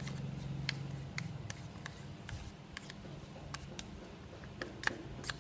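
Irregular sharp clicks and taps of a stirring utensil knocking against a container while mashing and stirring a lump of glue with a little warm water, over a steady low hum.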